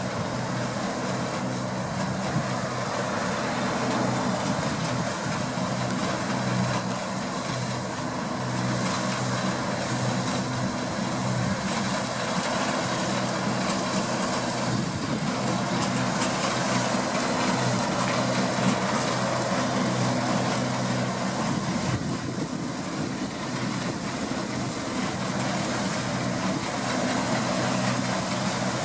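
Deutz-Fahr 6060 combine harvester working in wheat: its engine runs at a steady pitch under the dense, even rushing noise of the harvesting machinery.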